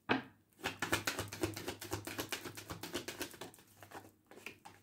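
A deck of tarot cards being shuffled by hand: a fast run of papery clicks and flicks, about eight a second, starting with a sharper snap and dying away near the end.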